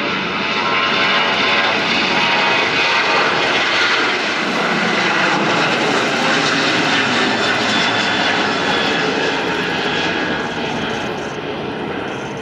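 Boeing 737-800's CFM56-7B turbofan engines at takeoff thrust: loud, steady jet noise with a whine of fine tones over it, fading near the end as the aircraft moves away.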